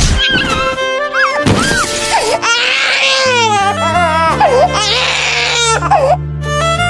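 Music: a sad song with held string notes, over which a high crying, wailing line slides up and down several times.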